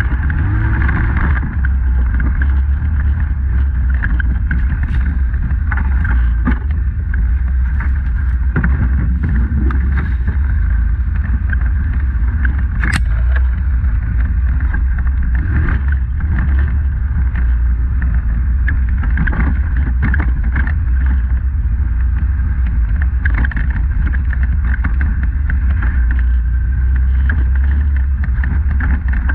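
Polaris Sportsman 850 ATV's parallel-twin engine running steadily under way, a constant low rumble, with scattered knocks and rattles and one sharp click about 13 seconds in.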